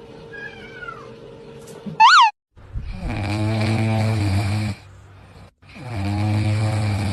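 A cat gives one short, loud rising-and-falling meow, then two long, low, buzzy sounds, each lasting nearly two seconds, with a pause of about a second between them.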